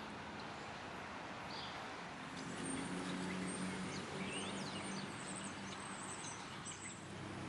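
Outdoor street ambience: a steady hiss with a low hum that comes in about two seconds in and fades near the end, and faint high chirps of small birds scattered through the middle.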